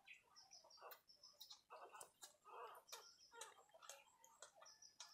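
Faint, irregular wet clicks and short squeaks from newborn puppies nursing while their mother licks them.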